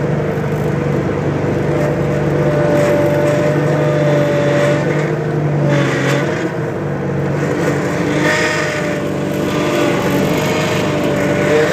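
Bobcat T300 compact track loader's diesel engine running steadily while warming up after a cold start, heard from inside the cab. A higher steady tone rides over the engine note and shifts in pitch a few times.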